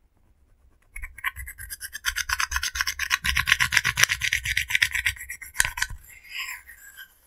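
Pressed face powder in a compact being scraped and broken up with a pointed tool: fast, dense scratching that starts about a second in and stops just before six seconds, followed by softer crumbling.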